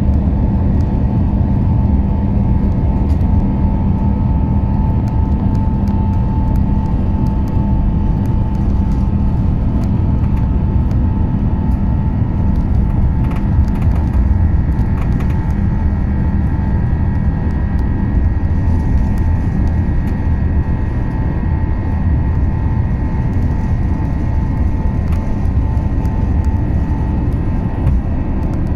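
Airbus A350-900's Rolls-Royce Trent XWB engines at takeoff power, heard from inside the cabin during the takeoff roll: a loud, steady rumble with a steady whine, and a few light rattles from the runway.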